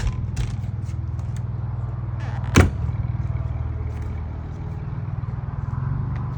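Steady low hum of an idling vehicle engine. A few light clicks come near the start, and one sharp knock about two and a half seconds in.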